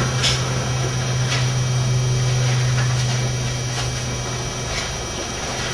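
Steady low electrical hum with background hiss from the microphone and sound system, broken by a few faint clicks.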